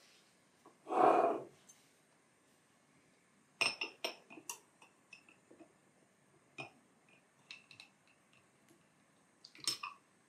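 A metal pudding mould and a knife clinking against a stemmed glass dessert cup as a set custard pudding is turned out into it: a string of light clinks, each ringing briefly, thickest near the end. The loudest sound is a short muffled noise about a second in.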